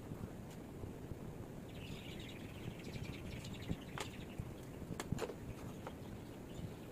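Steady low background noise with a short run of bird chirps, then a few sharp clicks, likely a paintbrush tapping against the palette.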